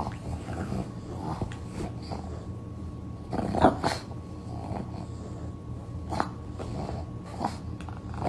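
A dog growling, with a few short, sharp sounds; the loudest are a pair about three and a half seconds in and another near the end.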